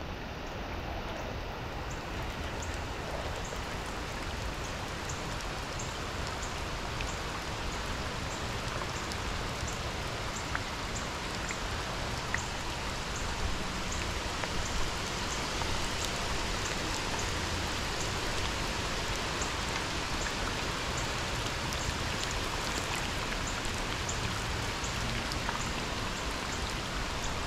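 Steady rain falling, an even hiss with faint small drop ticks scattered through it.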